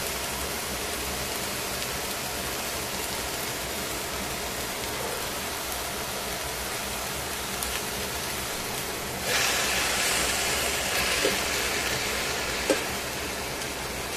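Vegetables sizzling steadily in a hot stainless steel pan. About nine seconds in the sizzle grows louder for a few seconds, and there is a sharp click near the end.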